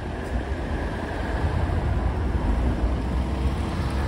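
Large truck's diesel engine running with a deep low rumble. It grows louder about a second in as a car drives past close by.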